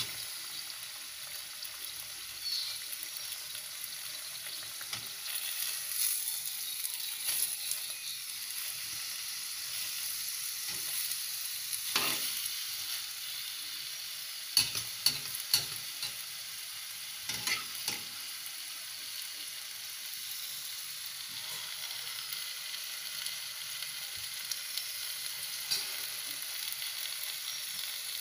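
Hot oil sizzling steadily around a stuffed dough parcel frying in a kadai, with a few sharp clicks of a slotted spatula against the pan around the middle.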